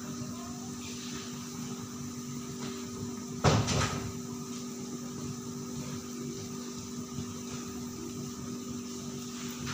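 Sliced shallots deep-frying in a large wok of hot oil: a steady sizzle with a low steady hum under it. About three and a half seconds in, a single sharp clatter stands out above it.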